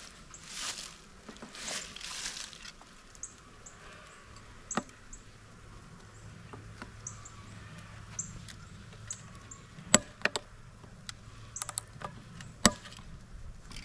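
Scraping, then scattered sharp clicks and knocks of wood and metal as the stapled-down lid of a wooden bee package box is worked loose. The two scrapes come first, and a few sharp knocks follow near the middle and toward the end.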